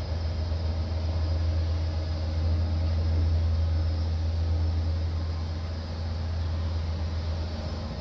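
Low, steady diesel engine rumble of heavy construction machinery working, swelling slightly a few seconds in.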